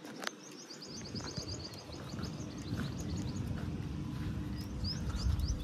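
A small bird singing a fast trill of short, high chirps that stops partway through, with a few more chirps near the end, over a low rumbling noise that grows louder.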